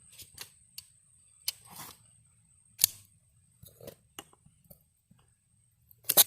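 Handling noise: scattered sharp clicks and knocks, the loudest about three seconds in and a quick cluster of them near the end.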